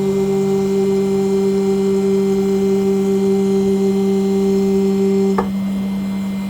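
CNC engraving machine running while engraving an aluminum nameplate: a steady low hum under a higher steady tone. The higher tone cuts off with a click about five seconds in, while the low hum carries on.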